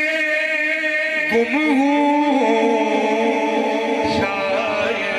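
A man singing a naat into a microphone, holding long, wavering melismatic notes that move to a new pitch about a second in and again near four seconds.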